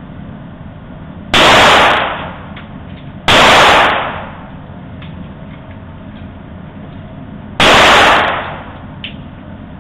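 Three gunshots, about two seconds and then four seconds apart, each so loud it overloads the phone's microphone, with a short tail of echo as each one fades.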